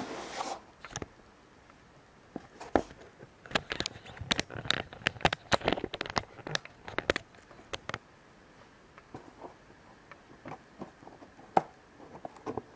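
Fingernails picking and scratching at a tape seal on the corner of a cardboard box: a short rasp at the start, then a quick flurry of sharp clicks and taps, and a few scattered clicks near the end.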